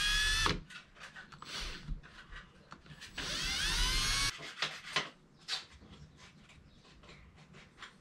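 Cordless drill boring out a hole in a resin-cast corn cob lure body, run in short bursts: its whine rises in pitch as it spins up. It stops about half a second in and runs again for just over a second around the three-second mark, with small handling clicks between and after.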